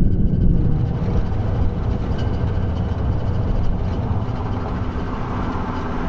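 Steady engine and road noise from inside a moving car.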